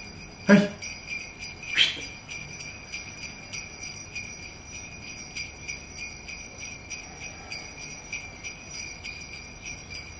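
Sleigh bells jingling in a steady, quick rhythm, with a shouted "Hey" about half a second in and a short rising vocal cry just before two seconds.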